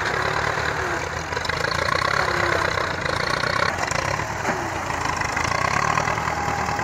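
Diesel tractor engines running steadily under load as front-loader tractors dig and lift soil.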